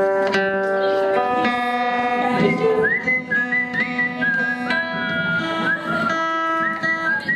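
A person whistling a short tune, each note scooping up into pitch, over guitar chords ringing; the whistling comes in a couple of seconds in.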